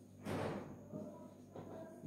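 Marker writing on a whiteboard: a few short strokes, the loudest about a quarter of a second in and fainter ones later.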